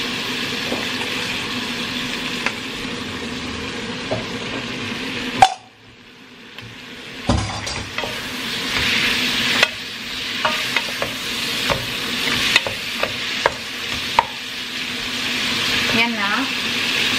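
Onions and bell peppers sizzling in oil in a pot, stirred with a wooden spoon. About five seconds in there is a sharp knock and the sound drops away abruptly. The frying then builds back up as chicken pieces fry in the pot, with light knocks of the wooden spoon against the pot.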